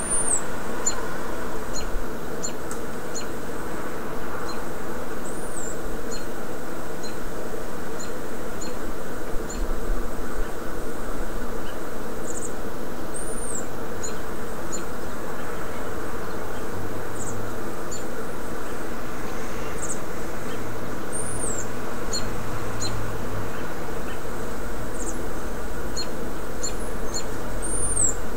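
A steady, even buzzing drone, with birds chirping over it: short, thin, high calls and a rising-and-falling call that comes back every few seconds.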